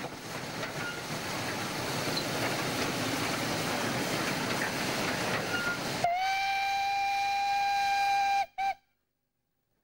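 Orenstein & Koppel four-coupled narrow-gauge steam tank locomotive running with a steady rushing noise, then sounding its steam whistle: one long steady blast about six seconds in, followed by a short toot, before the sound cuts off.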